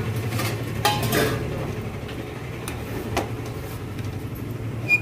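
Stainless-steel AMC cooking pot's lid and indicator knob being handled: a few sharp metal clicks and clinks, the last with a short ring, over a steady low hum.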